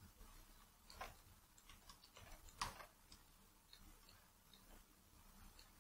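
Near silence with about ten faint, irregular clicks from working at a computer's mouse or tablet pen; the sharpest comes about two and a half seconds in.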